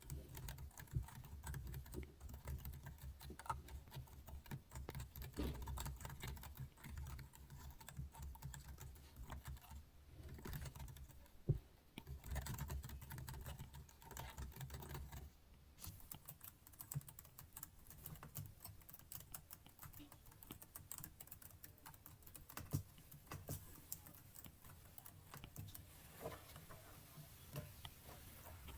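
Computer keyboard typing: quick, irregular keystrokes clicking throughout, with one louder clack about eleven seconds in. A low hum sits underneath and stops about halfway through.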